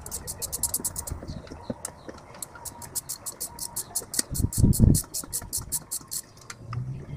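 A socket ratchet clicking rapidly as bolts are turned, about eight to ten clicks a second, in two runs with a short pause a little after one second in. A few heavy low thuds about four and a half seconds in.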